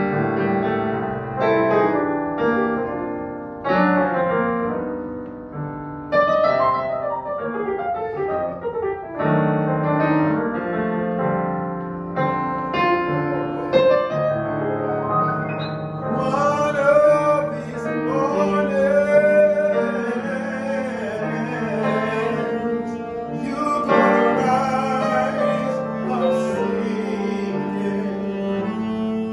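Digital piano playing chords and a melody, with a man singing over it, his held notes wavering with vibrato.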